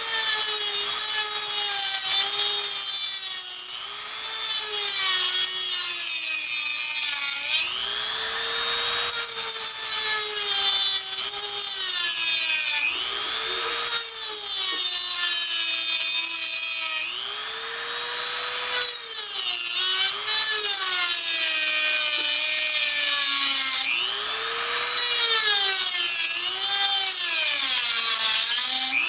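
Dremel rotary tool with an abrasive cut-off wheel cutting into the casing of a tubular filter capacitor held in a vise. The motor's whine sags in pitch each time the wheel bites under load and climbs back as it is eased off, several times over, with a gritty rasp of the cut.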